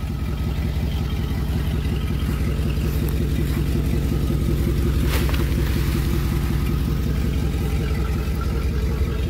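Chevrolet Z71 pickup's engine running steadily at low revs as the debris-loaded truck creeps forward, a deep, even rumble. One sharp click about five seconds in.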